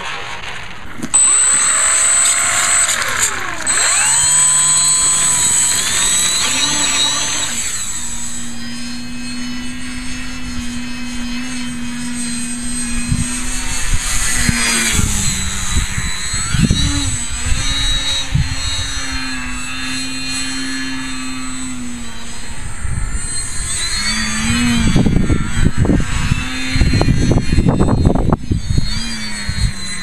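Electric RC aerobatic foam plane's Turnigy 3542 1250Kv brushless outrunner motor driving a 12x6 propeller, its buzz rising and falling with the throttle, then holding a fairly steady pitch through the middle. Gusts of wind buffet the microphone near the end.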